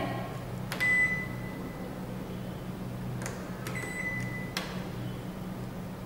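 Built-in microwave's control buttons clicking as Clock/Timer and Auto Menu are pressed together to set the child lock. The oven's beeper gives a short beep about a second in and a longer beep about four seconds in, over a low steady hum.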